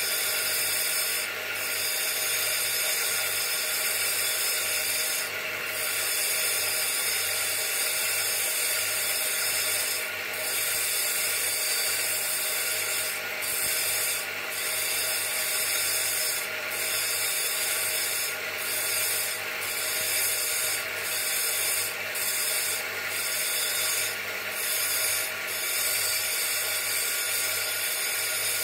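Bench grinder motor running steadily while a small nagasui agate stone is pressed against its spinning wheel, making a continuous gritty grinding hiss as the stone is shaped into an oval. The hiss briefly thins every few seconds.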